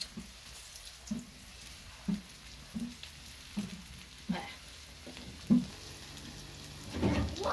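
Potato chips for French fries frying in oil with a steady faint sizzle, stirred with short knocks about once a second.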